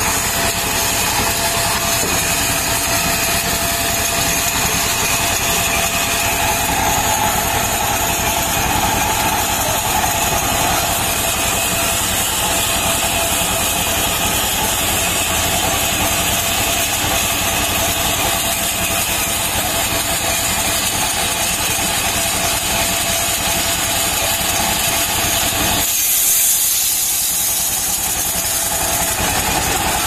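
A band sawmill cuts a palm log, with the saw and the small stationary engine that drives it running steadily. About 26 seconds in, the low engine sound drops and a loud high hiss rises for a couple of seconds.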